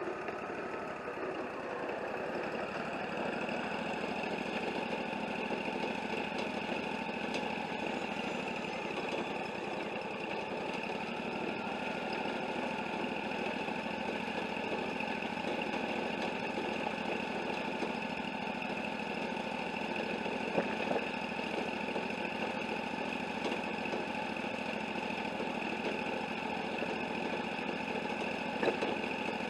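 Wood-Mizer LT40 portable band sawmill running steadily, its engine and blade making a continuous drone, with a couple of short sharp knocks, one about two-thirds of the way through and one near the end.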